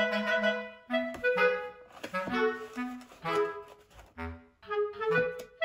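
Background music: a light melody of short, separate notes on a clarinet-like woodwind, over low bass notes.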